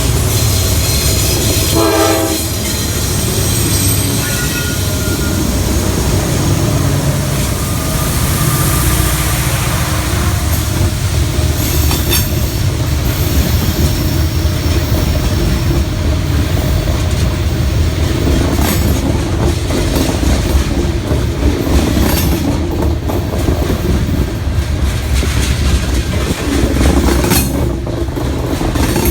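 Freight train rolling past up a steep grade: a steady low rumble and the clickety-clack of car wheels over rail joints. About two seconds in there is a brief pitched squeal or tone.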